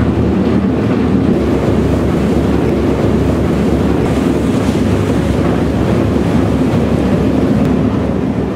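Passenger boat under way: a steady low engine rumble mixed with rushing water, and wind buffeting the microphone.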